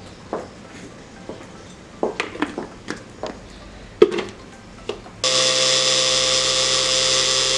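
Plastic blender jar and lid clicking and knocking as they are fitted and set on the base, with a sharp knock about four seconds in. About five seconds in, the blender motor starts suddenly and runs with a steady whine, blending a jar packed with roasted tomatoes, tomatillos and guajillo chiles.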